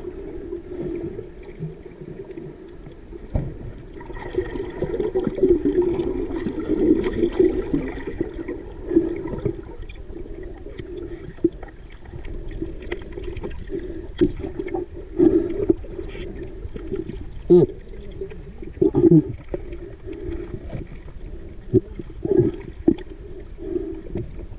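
Underwater water noise picked up by a camera in its waterproof housing: muffled sloshing and gurgling over a steady low hum, with several louder surges in the second half.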